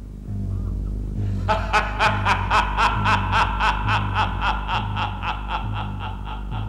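A woman laughing a long, fast cackle, about five ha-ha peals a second, starting about a second and a half in, over a low, slowly pulsing music drone.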